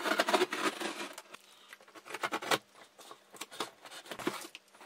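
Box cutter slicing through packing tape along the seams of a cardboard box: irregular short scratchy cuts and scrapes, with the cardboard being handled.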